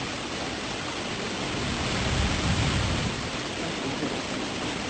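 Heavy rain pouring down in a steady, dense hiss, with a low rumble swelling about two seconds in.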